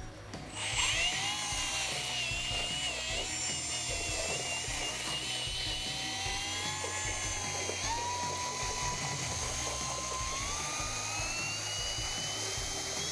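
18-volt cordless drill with a mixer attachment running, starting about half a second in and stirring two-component epoxy grout sand with its activator in a bucket. The motor's whine wavers and glides in pitch as the load changes.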